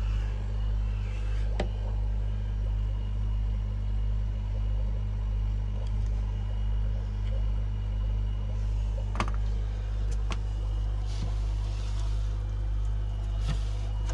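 Steady low electrical hum of running fish-room equipment, its level wobbling slowly and evenly, with a few sharp clicks from handling about two seconds in and twice more near the two-thirds mark.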